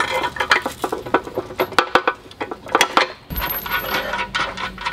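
Small metal hardware clinking and tapping as a mechanic's creeper is put together by hand: bolts and metal frame tubes knocking against each other in a string of sharp clicks.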